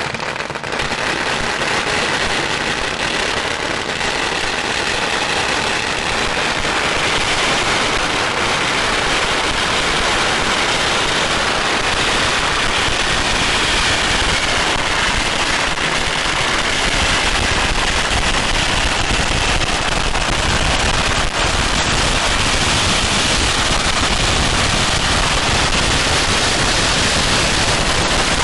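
A long string of firecrackers bursting in a dense, unbroken crackle that grows a little louder over the first several seconds.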